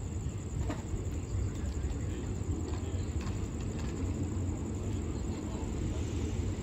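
Low, steady rumble of a diesel railcar train running at the station platform, with a thin, steady high insect trill above it.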